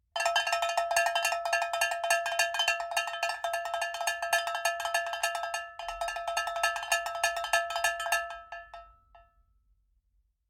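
Rapid, dense metallic strikes with a steady ringing pitch, like a bell shaken or struck over and over. It cuts in suddenly, dips briefly a little before six seconds, and thins out and dies away near the end.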